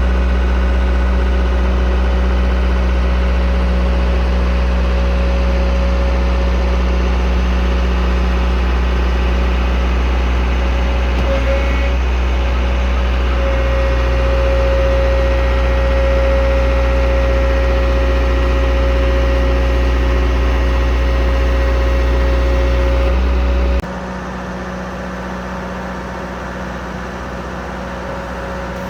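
Fraste MD-XL drilling rig's diesel engine and hydraulics running steadily under load, a deep hum with a steady whine over it. Near the end the sound drops suddenly to a quieter, lighter running.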